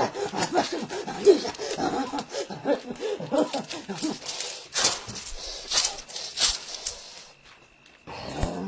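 A man's voice making wavering, whining, wordless calls for the first half, then a few sharp clicks, then a short quiet stretch near the end.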